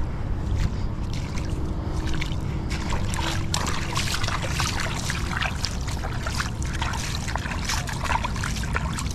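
Water splashing and sloshing as a mesh bag of freshly caught Indo-Pacific tarpon is dunked and swished in shallow water, with a run of quick splashes from about three seconds in to near the end.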